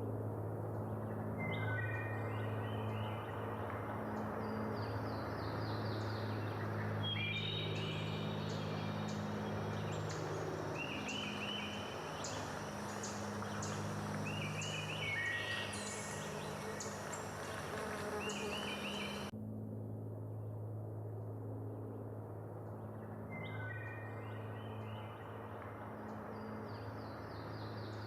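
Birds calling in repeated short chirping trills over a steady low hum, which breaks off abruptly about 19 seconds in and starts again.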